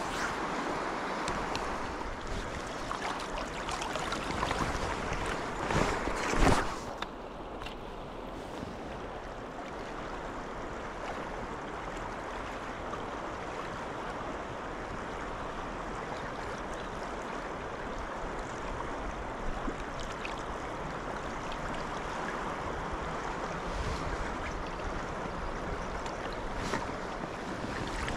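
Steady rushing of the River Tay running high and fast after rain. A brief louder burst of noise about six seconds in.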